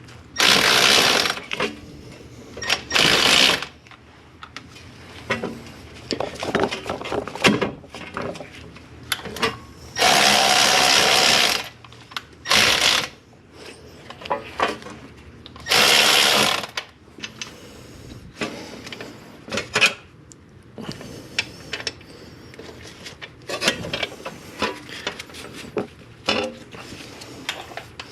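A power tool run in several short bursts of one to two seconds, with clinks and knocks of metal tools and parts in between, during work on a front wheel hub assembly.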